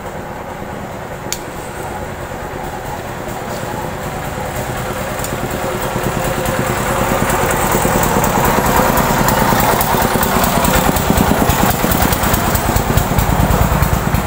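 An engine running with a fast low pulse, growing steadily louder from about four seconds in.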